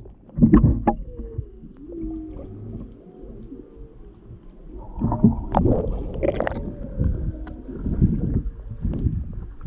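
Humpback whale song heard underwater: drawn-out calls that glide up and down in pitch over a low water rumble. Short bursts of water sloshing and knocking against the camera come about half a second in and again around five to six seconds.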